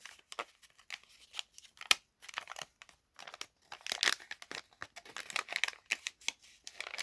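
Plastic packaging crinkling and rustling in irregular short crackles and clicks as small plastic model parts are handled and searched through.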